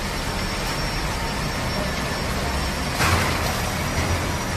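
Steady running noise of toilet-paper and kitchen-towel production-line machinery, with a faint thin high tone over it. About three seconds in, a sudden louder burst of noise.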